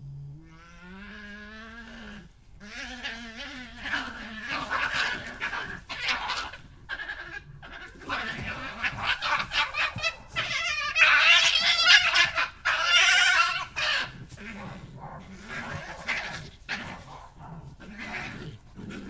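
European badgers in a territorial fight, a resident attacking an intruder. A low growl that rises in pitch comes first, then a run of harsh screams and squeals that is loudest about eleven to thirteen seconds in before easing off.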